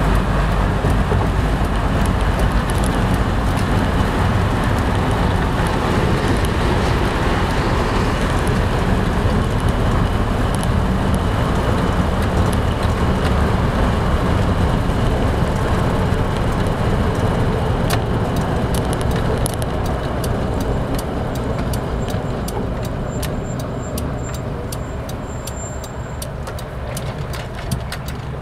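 Inside the cabin of a 1987 Toyota FJ60 Land Cruiser under way: its 4.0-litre inline-six engine runs with a tractor-like sound over road noise. After about 20 seconds the sound eases off as the truck slows, and a run of light, evenly spaced ticks comes in.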